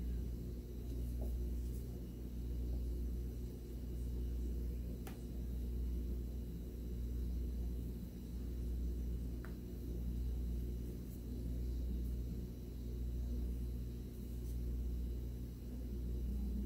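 Soft ambient background music: a low, steady drone that swells and fades about every two seconds.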